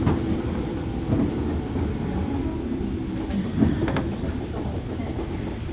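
Running noise inside the motor car of a JR Kyushu 103 series 1500-subseries electric train: a steady low rumble and hum of the resistance-controlled MT55 traction motors and wheels on the rails. A few sharp clicks of the wheels over rail joints come at the start and around three to four seconds in.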